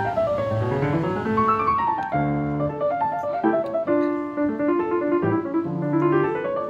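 Background piano music playing quick runs of notes, falling near the start and rising near the end.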